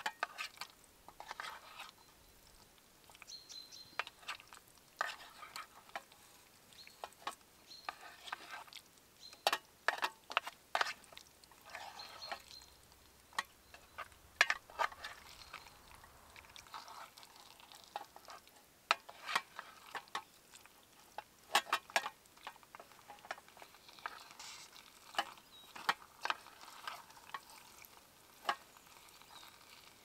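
Metal spoon stirring thick food in an aluminium Polish mess-kit pot on a small camp stove: irregular scrapes and clinks of spoon against the pot, some with a brief metallic ring. Food sizzles faintly underneath as it heats.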